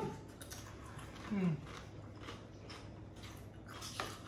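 Faint crunching and chewing of tortilla chips, in small sharp ticks, with a brief falling voice-like sound from one of the eaters about a second and a half in.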